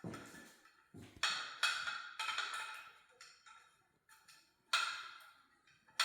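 Glass panels and small metal pins of a light fixture clinking as they are fitted: a handful of sharp taps, each with a brief bright ring, loudest about a second in and again near five seconds.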